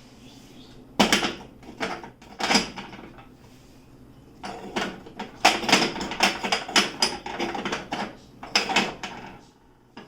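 Clatter and knocks of stove parts being handled and set back in place: two separate knocks, then a busy run of clattering that stops near the end.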